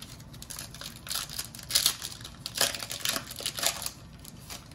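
Foil wrapper of a Panini Mosaic Fast Break basketball card pack crinkling and tearing as it is ripped open by hand: a run of sharp, irregular rustles from about one to four seconds in.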